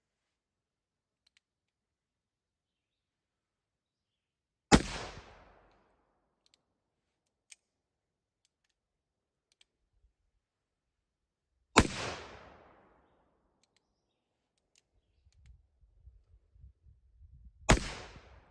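Three shots from a .44 Pietta Remington New Model Army blackpowder cap-and-ball revolver firing conical bullets, about six to seven seconds apart, each a sharp bang with a short fading echo. Faint clicks come between the shots.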